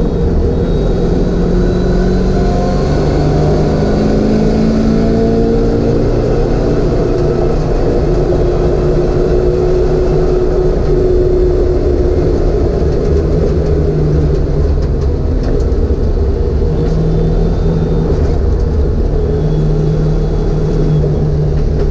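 1988 Ford Mustang's engine heard from inside the cabin under hard acceleration on a race track, rising in pitch as the car speeds up, then falling as it slows for a corner near the end.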